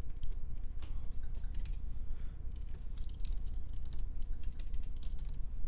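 Typing on a computer keyboard: quick, irregular runs of keystroke clicks, over a low steady hum.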